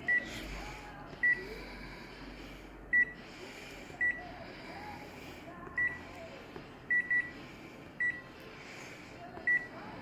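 Photocopier control panel beeping as its buttons are pressed: about nine short, single-pitched key beeps at irregular intervals, two of them in quick succession, over a faint low hum.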